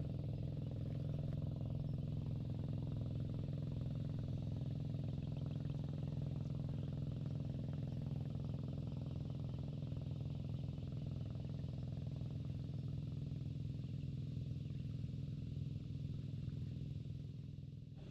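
A vehicle engine running steadily with a low, even hum that eases off slightly near the end.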